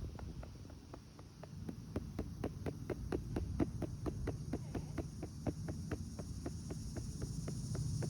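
Hand patting the back of a RealCare infant-simulator doll to burp it: soft, even pats, about five a second, starting about a second in, over a low rumble.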